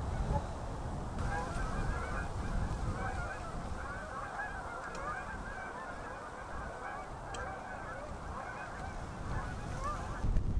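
A flock of geese honking, many overlapping calls at once, starting about a second in, over a low rumble.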